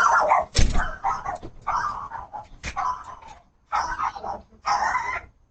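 A dog barking repeatedly, about eight barks with short gaps between them and a brief pause partway through.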